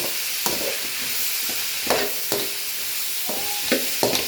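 Capsicum and potato sautéing in hot oil in a pan, sizzling steadily while a spoon stirs them, knocking and scraping against the pan about six times.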